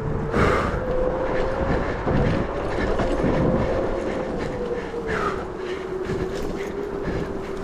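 Onewheel electric hub motor whining at speed on a rough off-road descent, its pitch lifting slightly early on and dropping a little about five seconds in. Tyre rumble and repeated knocks from the bumpy dirt run underneath.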